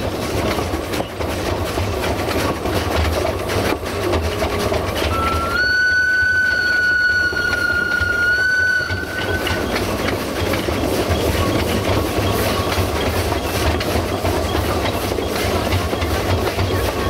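Narrow-gauge steam locomotive 762.209 hauling its train, with a steady running rumble and wheels clicking over the rail joints. About five seconds in, one steady whistle blast lasts about four seconds.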